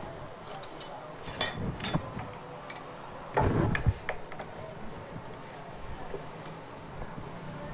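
Light metallic clinks and taps of motorcycle clutch parts being handled and fitted, with a louder knock about three and a half seconds in.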